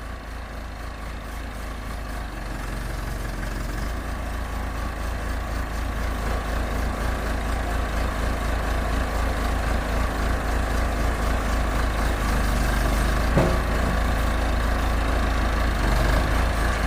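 Backhoe's heavy diesel engine running steadily with a low rumble, growing gradually louder, with a single short knock about thirteen seconds in.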